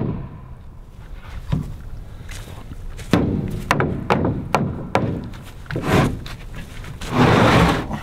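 Claw hammer knocking on wooden pallet slats: scattered sharp wooden knocks, several in quick succession in the middle. Near the end comes a rough scraping rattle of about a second, the loudest part.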